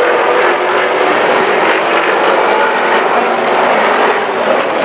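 A field of Pro Truck race trucks running hard around a paved oval, their engines blending into a loud, steady drone of overlapping engine notes.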